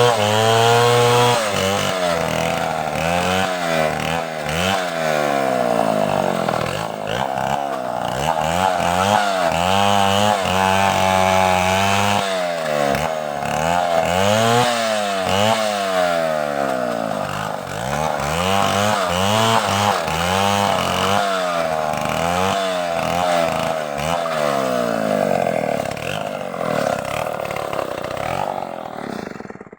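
Two-stroke chainsaws cutting large logs, their engines revving up and falling back over and over as they bite into the wood. The sound fades out at the very end.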